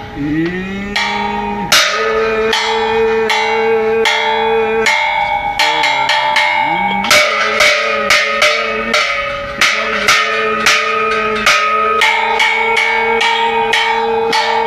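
Homemade rumsterstang percussion pole beaten with a wooden stick, its cowbell, brass bell and metal pans clanging and ringing. The strikes fall in a rough rhythm that starts about two seconds in and gets faster and denser in the second half.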